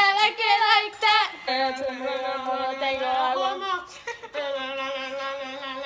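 Girls singing loudly without words: wavering high notes at first, then two long held notes of about two seconds each with a short break between them.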